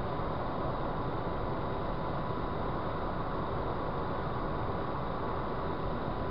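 Steady road and wind noise of a car cruising at motorway speed, heard inside the cabin through a dashcam microphone.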